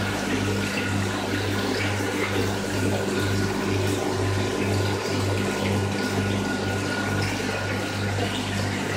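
Water circulation pump running with a low hum that pulses about twice a second, over steady splashing and trickling of water flowing back into the tank.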